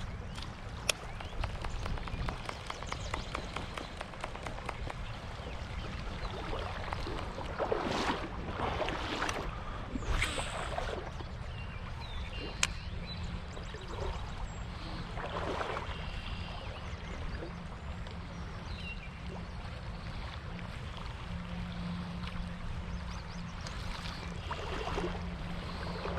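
Shallow creek water running steadily, with a few short rushing surges of noise scattered through.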